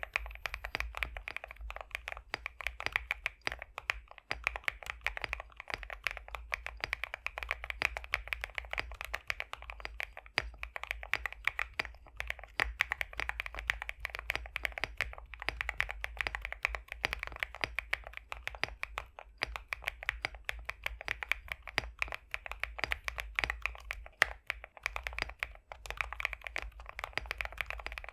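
Continuous typing on a High65 v2 custom mechanical keyboard with pre-lubed BSUN X linear switches: a dense, fast stream of keystrokes with a thocky, creamy sound. There are a few short pauses, around twelve, nineteen and twenty-four seconds in.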